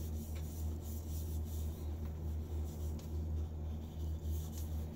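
Fingertips rubbing jojoba oil into a wooden shaving-soap bowl: a soft, uneven rubbing on wood, over a steady low hum.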